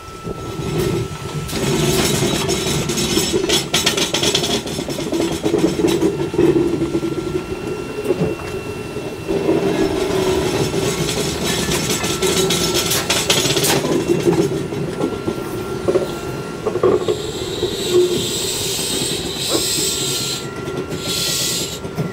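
Izuhakone Railway ED32 electric locomotive moving off and slowly shunting coupled electric train cars. A steady motor hum runs under hiss and squeal from the wheels on the rails, with occasional knocks. The sound swells about a second in, and the high hiss and squeal grows stronger near the end.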